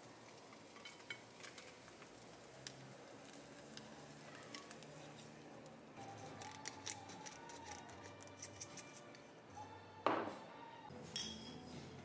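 Quiet kitchen handling: light clicks and taps of food and utensils on a ceramic plate, a quick run of small ticks partway through, and a louder knock about ten seconds in followed by a smaller one, over faint soft music.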